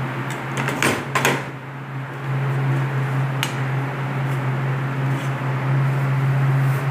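A metal spoon clinking and scraping against frying pans a handful of times as filling is scooped from one pan onto an omelette in another, over a steady low hum.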